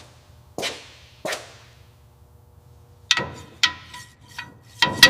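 Metal engine parts and tools being handled during reassembly. Two sharp knocks are followed, about three seconds in, by a quicker run of metallic clinks that ring briefly.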